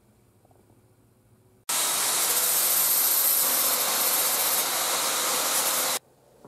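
A power tool running steadily: a loud hiss with a high whine above it that starts suddenly a little under two seconds in and cuts off about six seconds in.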